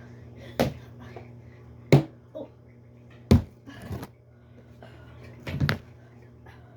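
Small toys being tossed and landing, about six short knocks at uneven spacing, the loudest about two seconds in and again a second later. A steady low hum runs underneath.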